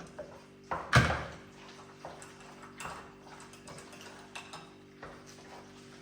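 A cooking utensil knocking and scraping against a pot as creamy chicken pasta is moved into a bigger pot. There is one loud knock about a second in, then lighter scrapes and clinks, over a steady low hum.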